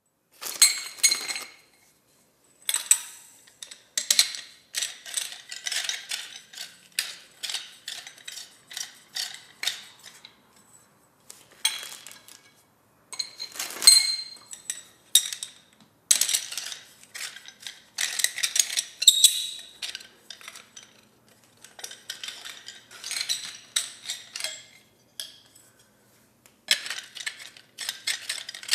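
Metal wire-shelving poles and parts knocking together during assembly: repeated sharp metallic clinks and clanks with a brief ring. They come in irregular clusters separated by short pauses.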